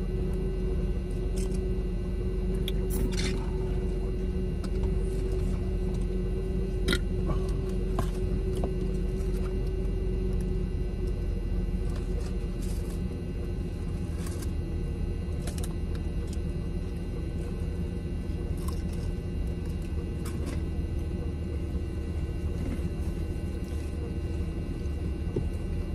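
Steady low rumble and hum inside a parked car, with scattered soft clicks and rustles of people eating.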